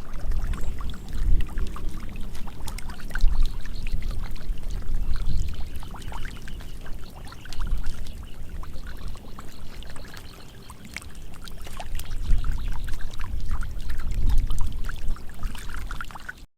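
Shallow muddy water splashing and sloshing as hands grab fish in a flooded rice field: many small irregular splashes and drips over a low rumble.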